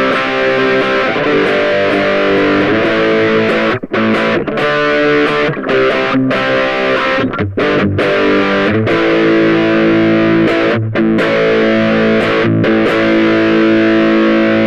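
Ibanez GAX30 electric guitar played through an Angry Charlie-type distortion with a second drive pedal stacked on: heavily distorted, harmonic-rich chords and riffing with a few short breaks, settling into longer held chords in the second half.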